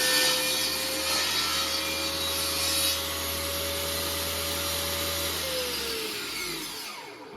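Electric power tool working wood. Its motor runs with a steady whine that rises slightly in pitch, then is switched off about five seconds in and winds down, its pitch falling.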